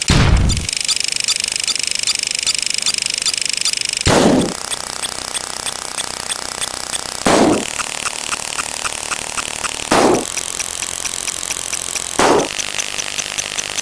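Edited sound effects in rapid succession: a fast, even ticking with high tones runs throughout, and a louder short effect cuts in about every three seconds, five times.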